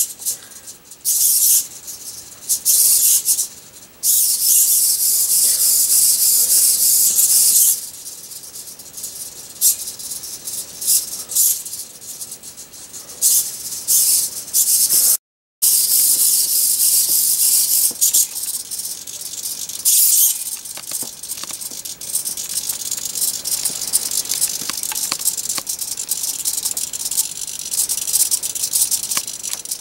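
Small hobby servomotors turning the ultrasonic-sensor mounts to follow a moving object, buzzing in short bursts with gaps between moves. After a brief dropout about halfway, a fainter, steadier buzz with rapid ticking.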